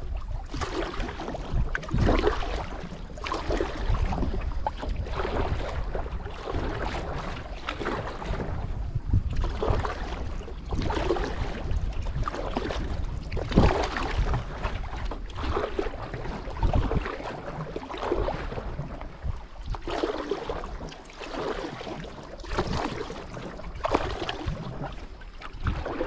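Canoe paddle strokes in lake water, splashing and dripping in a steady rhythm of roughly one stroke a second, with a low wind rumble on the microphone.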